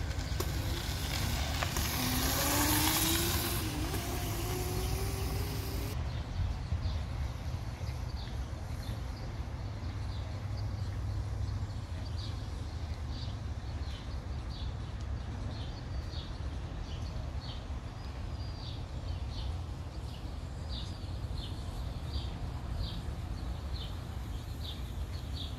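Razor MX350 electric dirt bike's motor whining, rising in pitch as it accelerates past over the first few seconds. After that there is a steady low rumble with short, high chirps repeating irregularly.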